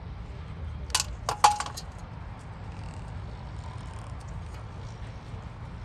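A quick run of sharp metallic clinks about a second in, one ringing briefly, over a steady low rumble.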